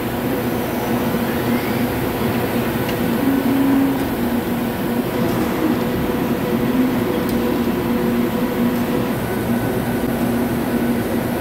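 CNC horizontal boring machine running, its spindle turning a boring tool at 1400 rpm as it cuts inside a welded STS316 stainless steel nozzle. The sound is a steady mechanical drone with a few held tones that come and go.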